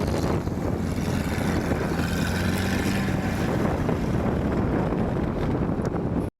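Off-road 4x4 engine running steadily, with wind buffeting the microphone; the sound cuts off abruptly near the end.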